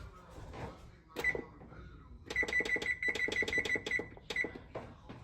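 Electronic beeps from a kitchen appliance: a single beep, then a fast even run of about a dozen identical beeps, then one more.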